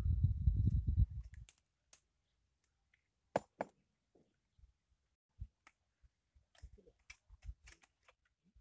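Wind buffeting the microphone with a fluttering low rumble for about the first second and a half, then a few scattered sharp clicks and soft knocks, two of the clicks close together near the middle.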